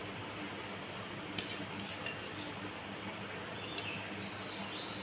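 Quiet background: a steady low hum with a few faint light clicks and, near the end, faint high chirps.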